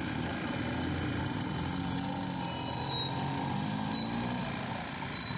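Steady engine-like rumble of street machinery, with a few brief high squeaks as a hand-lever citrus press is pulled down on peeled oranges.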